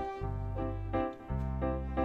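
Instrumental background music: held notes over a bass line that changes pitch, with a brief dip in level a little after the first second.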